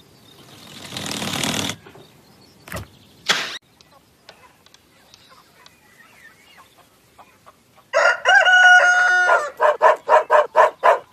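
A rooster crowing, its held call stepping in pitch, then breaking into a quick run of about six short clucks. Before it, a swelling whoosh rises and cuts off in the first two seconds.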